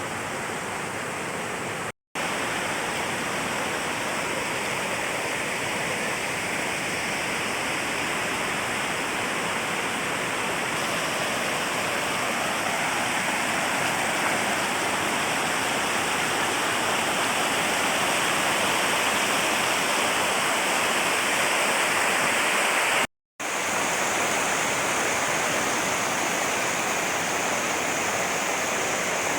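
Waterfall: a steady rush of falling water, cut by two brief total dropouts about two seconds in and near the end.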